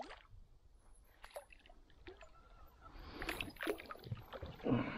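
Small bass splashing at the surface beside a kayak as it is reeled in and grabbed by hand. Scattered light splashes and water sloshing, busier and louder from about three seconds in.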